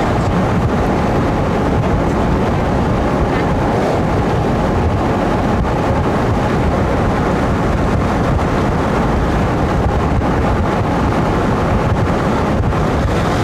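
Steady road and engine noise of a car being driven, with wind rushing over the microphone.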